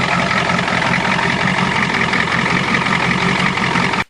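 Ford diesel truck engine running steadily just after a cold start on newly repaired glow plugs. The sound cuts off suddenly near the end.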